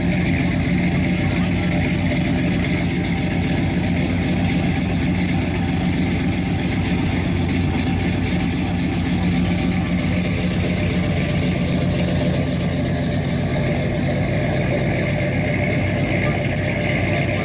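1957 Chevrolet Bel Air's engine running steadily at low speed as the car rolls slowly away, with an even exhaust note.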